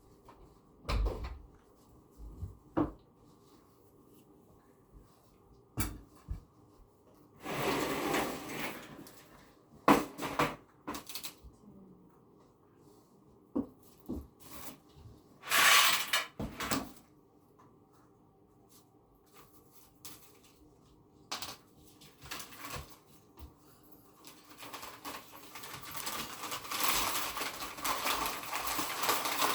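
Bird cage parts and toys being handled and taken out: scattered knocks, clicks and clatter, with two louder scraping bursts. Near the end a denser rustling noise builds up.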